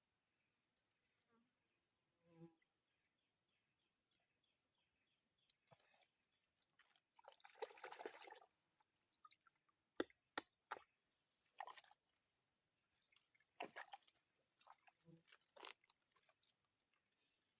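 Near silence: a faint, steady high-pitched insect drone, with scattered soft clicks and rustles, a short cluster of them about eight seconds in.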